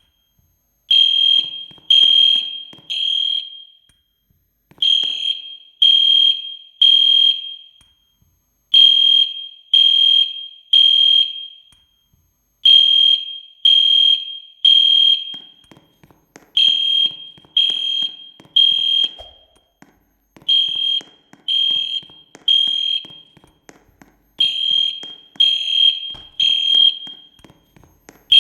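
Fire alarm sounding the temporal-three evacuation pattern: three loud, high-pitched half-second beeps a second apart, then a short pause, repeating every four seconds. By the uploader's account it went off with nothing to set it off, a false alarm.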